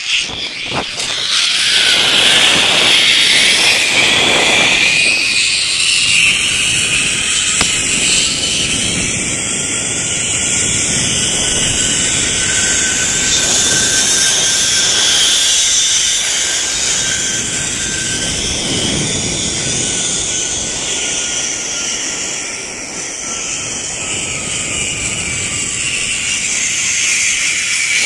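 Zip-line trolley pulleys running along the steel cable: a loud, steady whirring hiss with a faint whine whose pitch rises slowly and then falls again over the ride.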